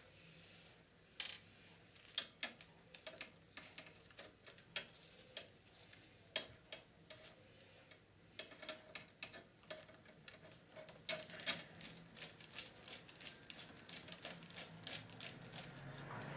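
Irregular small clicks and taps of a screwdriver and gloved fingers working on the parts of an opened VCR chassis, some with a light metallic ring and a few sharper knocks. The clicks come more thickly in the last few seconds.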